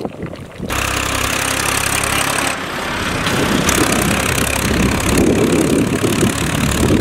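Tractor engine running as it drives past pulling a trailer loaded with bricks, starting suddenly within the first second and staying loud and steady.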